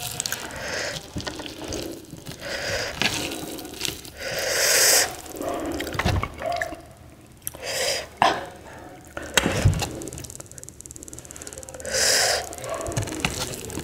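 Close-up eating sounds: wet chewing, smacking and swallowing of rice and soya chunk curry eaten by hand, with squelches of fingers mixing rice on a plate. The sounds come in irregular bursts, with a few soft low thumps.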